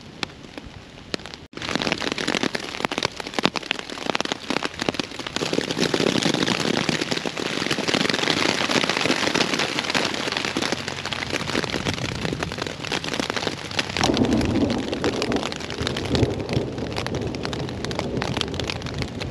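Heavy rain pelting a tent's fabric in a dense patter of drops, with low thunder rumbling at times, strongest about fourteen seconds in. It starts quieter and jumps suddenly louder about a second and a half in.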